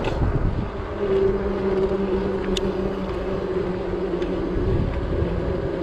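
Wind rushing over the microphone of a bike-mounted action camera while riding, with a steady low hum underneath.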